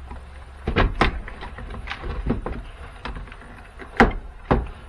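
Irregular clicks and knocks of parts and tools being handled while a battery jump pack is taken apart, the loudest knock about four seconds in, over a faint low hum.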